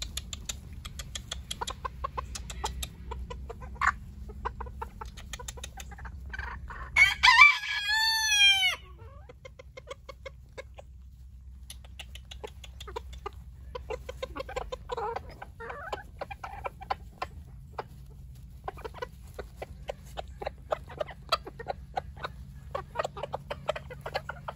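Backyard chickens clucking amid many quick clicks, with a rooster crowing once, loudly, about seven seconds in.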